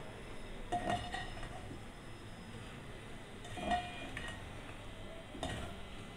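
Slotted metal spatula stirring chicken and vegetables in a metal pot, knocking against the pot's sides with several short, ringing clanks.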